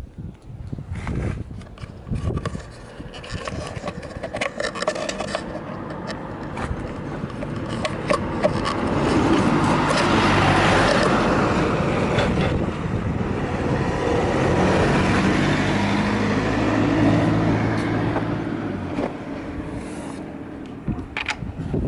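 Early-type Yamaha RZ250R two-stroke parallel-twin engine running. It gets louder from about 8 s in, holds there for about ten seconds, then settles back. The seller bills it as revving up well with no abnormal noises.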